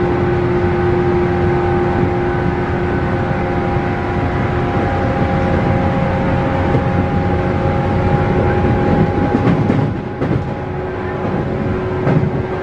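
JR 117-series electric train heard from inside the passenger car at speed: its DC traction motors and gears give a loud, steady whine over the rumble of the wheels. A few sharp clacks of the wheels over rail joints come near the end.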